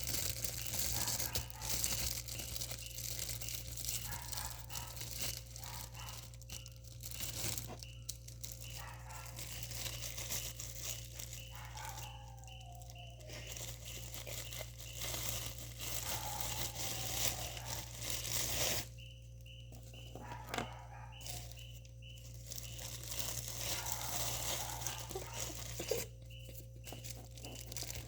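Irregular crinkling and tearing of plastic packaging being handled, in bouts with brief pauses, over a steady low hum.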